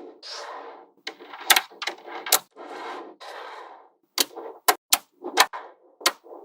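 Small magnetic balls clicking as they snap together, with stretches of rattling, scraping noise as they roll and rub against each other. In the second half, sharp single clicks follow one another quickly.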